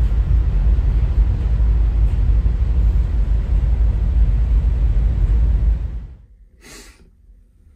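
Wind buffeting a phone's microphone on the open deck of a moving ferry: a loud, rough, low rumble. It cuts off suddenly about six seconds in, leaving faint room tone with a brief rustle.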